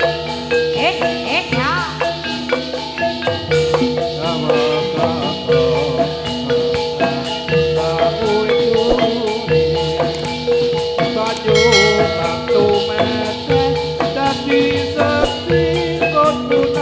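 Javanese gamelan music for a gedruk dance: struck bronze metallophones ring in a steady repeating pattern over drum strokes, with rattling jingles.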